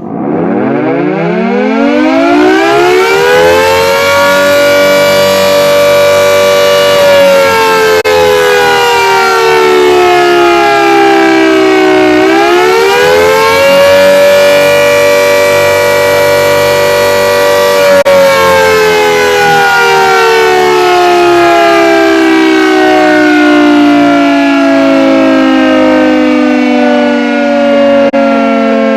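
British Castle Castings air raid siren wailing: it climbs steeply to full speed over the first few seconds, holds, sags, climbs back to full pitch about halfway through, then winds down in a long slow fall.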